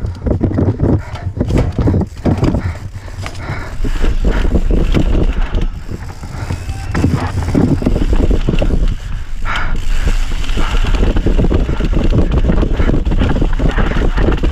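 Mountain bike rattling over a rocky dirt trail at speed: a dense stream of knocks and clatters from the bike and tyres hitting rocks and ruts, over a steady low rumble.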